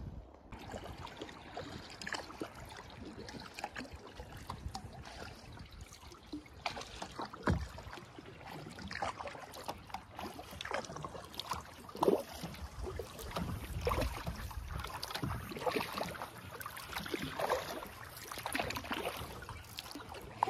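Kayak paddle dipping and splashing in calm water, with drips and small water sounds against the hull in irregular strokes every second or two.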